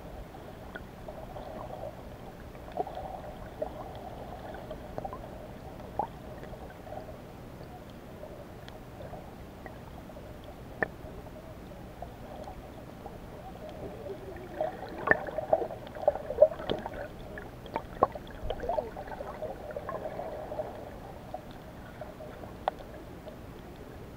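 Muffled underwater sound picked up by a submerged camera: a steady low murmur of water with scattered clicks and pops, growing denser and louder for several seconds past the middle.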